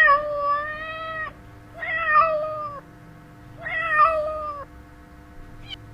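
Domestic cat meowing three times: a long meow at the start, then two shorter meows about two seconds apart.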